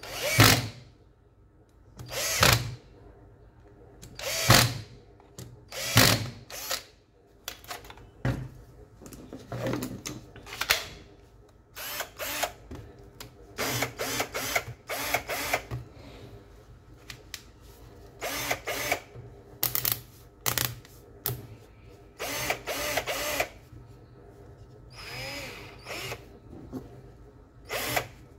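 Makita HP347D cordless hammer drill's motor run in a series of short trigger bursts, each a second or less, while the chuck is worked loose from the spindle.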